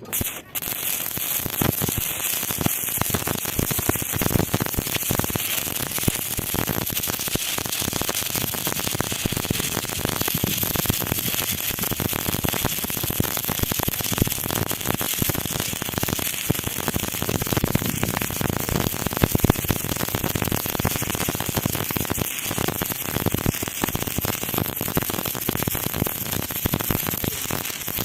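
Electric arc welding: the arc crackles and sizzles steadily with dense, irregular popping. It starts suddenly as the arc is struck.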